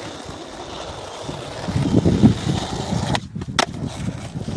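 Skateboard wheels rolling on asphalt, swelling to a louder rumble as the board comes close, then two sharp clacks about half a second apart near the end.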